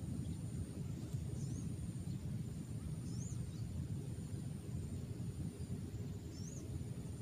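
Steady low outdoor rumble by the estuary, with a small bird giving short, high chirps three times and a faint, steady high-pitched whine above it.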